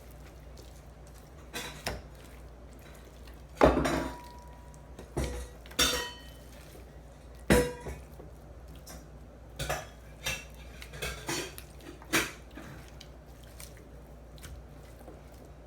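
Utensils knocking and clinking against a dish in about a dozen separate strikes with pauses between them. The loudest comes about four seconds in, and a few of the strikes ring briefly.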